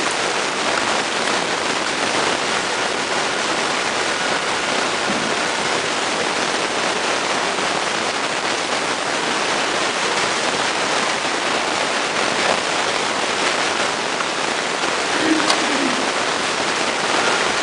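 Steady, even hiss like rushing water, with no speech: the background noise of the room and the recording.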